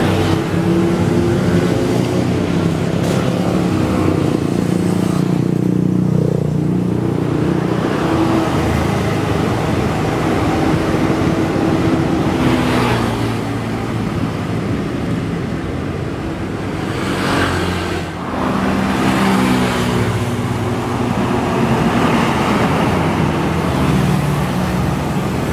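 Highway traffic: vehicle engines running and passing close by in a steady stream, with a brief lull about 18 seconds in.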